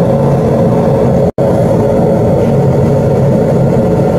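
Gas-fired unit heater running on high fire, with a steady burner roar and fan hum. The high fire is underfiring because the gas valve is bad and won't adjust. The sound cuts out for an instant about a second in.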